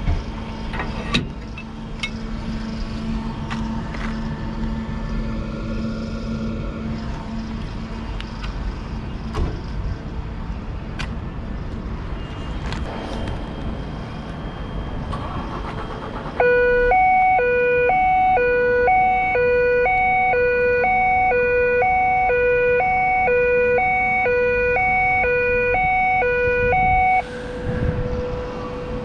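A few sharp metal clanks over a steady engine hum. About halfway through, a loud electronic warning alarm starts, switching back and forth between a low and a higher pitch a couple of times a second. Near the end it breaks off into a single held tone. The alarm is the kind of warning sounder a container terminal crane gives when it moves.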